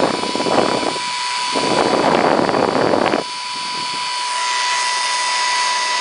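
Small vintage Interpur 300-watt, one-speed hair dryer running: a steady rush of air with a high whine from its motor. Twice in the first three seconds the rush gets louder for about a second at a time, the second ending abruptly.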